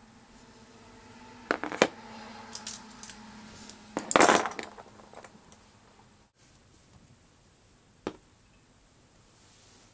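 Art supplies set down on a tabletop: clusters of clicks and knocks about a second and a half in and again, loudest, around four seconds in, as a plastic paint palette and brushes are laid out. Near the end comes a single knock as a glass jar of water is set down.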